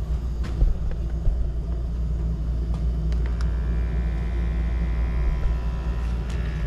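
Gas furnace running at high fire: a steady low rumble of the burners and blower. About three seconds in, a steady higher whine of several tones joins it.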